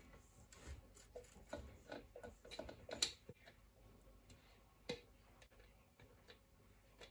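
Faint, irregular clicks and taps as finely chopped garlic is scraped out of the container of a small handheld pull chopper, busiest over the first three seconds with one sharper tap near five seconds.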